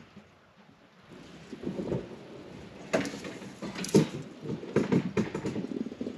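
Ryobi riding mower rolling backward down metal loading ramps: low rumbling with a run of knocks and clanks, the loudest about three and four seconds in.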